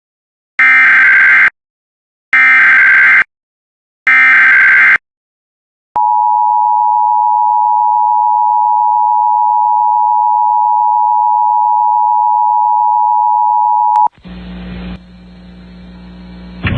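Emergency Alert System header: three short bursts of SAME digital data tones, each just under a second long, then the steady two-tone EAS attention signal held for about eight seconds, which cuts off into a faint hiss and hum.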